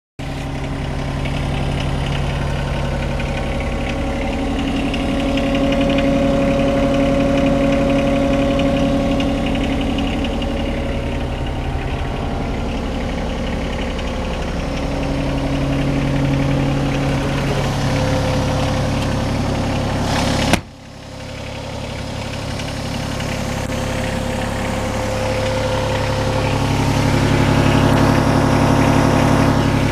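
2018 John Deere 26G compact excavator's diesel engine idling steadily. A sharp click about two-thirds of the way through is followed by a brief drop in the sound, which then builds back up.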